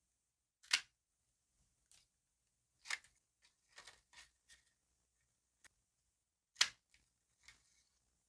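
Paper and stickers being handled on a desk: a string of short, crisp rustles and taps. The loudest come about a second in and again near the end, with a fainter cluster in between.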